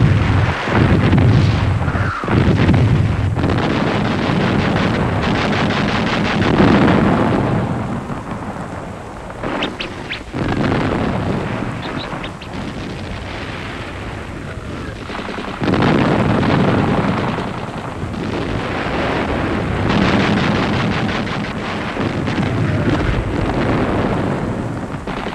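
Battle sounds: artillery explosions and gunfire in a dense, continuous din that swells and eases, with a few sharp blasts near the start.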